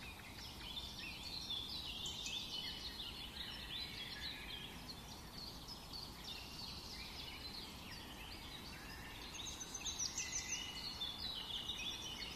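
Many small birds chirping at once, a busy chorus of short high chirps that grows denser about three quarters of the way through, over a low steady background hum of outdoor noise.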